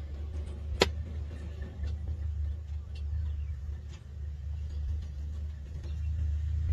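Steady low rumble of an idling safari vehicle engine, with one sharp click about a second in.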